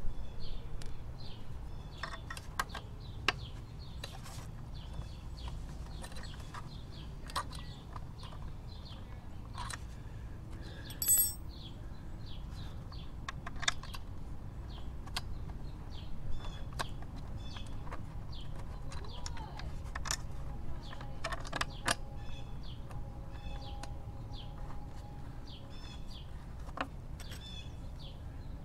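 Scattered small clicks and clinks of a hex key and screws as a radiator guard is fastened to a motorcycle frame, with one brief metallic ring about eleven seconds in. Birds chirp faintly throughout.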